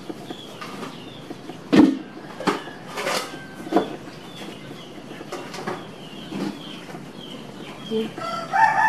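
A few sharp knocks and taps while a dough ball is pressed and flattened into breadcrumbs on a plate, the loudest about two seconds in. Short faint bird chirps repeat in the background.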